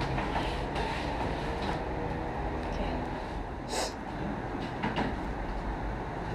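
Steady low rumbling room noise with faint handling sounds, and one short sharp rustle about four seconds in.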